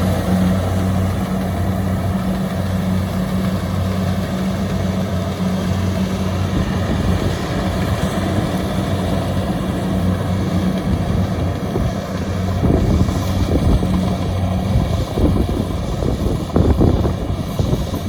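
Kubota DC-70 Plus combine harvester's diesel engine running steadily under load, a low pulsing hum. Near the end the hum fades and gusty wind noise on the microphone takes over.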